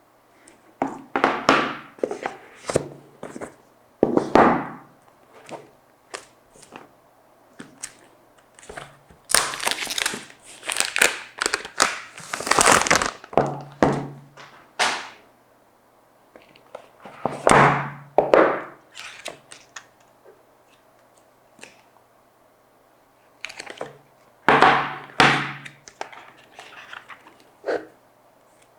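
Phone packaging being handled and opened: irregular knocks and thunks with rustling, crinkling and tearing, coming in clusters separated by short pauses.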